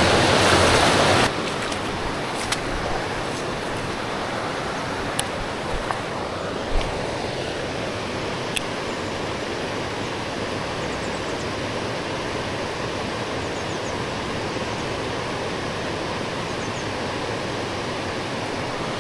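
Water rushing over a river weir, loud for about the first second, then a quieter, steady rush of flowing water from farther off. A few faint clicks are heard over it.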